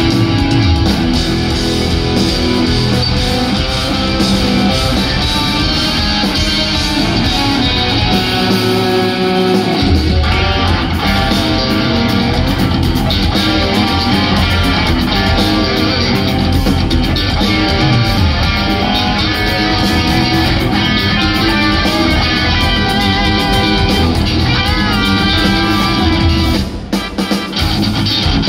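Instrumental progressive metal played live by two eight-string electric guitars and a drum kit, loud and dense. The low end drops away about eight seconds in and comes crashing back about two seconds later, and the band breaks off for a moment near the end.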